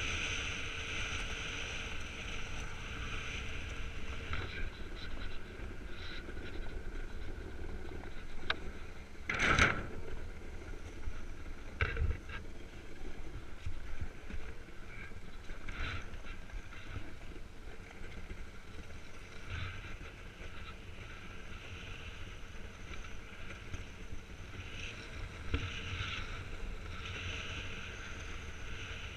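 Iceboard runners gliding over lake ice: a steady scraping hiss and rumble, with wind on the microphone. There is a sharp knock about ten seconds in and another about two seconds later, as the board hits bumps in the ice.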